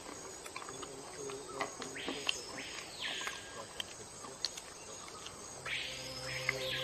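Rainforest insects calling: two rasping calls that rise and fall in pitch, one about two seconds in and one near the end, over a steady ambient hum, with a few faint clicks.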